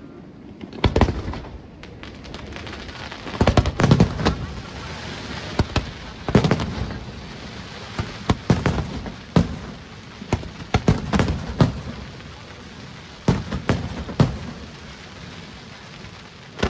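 Aerial firework shells bursting in quick succession: a dozen or more sharp bangs, some in tight clusters, each followed by an echoing rumble.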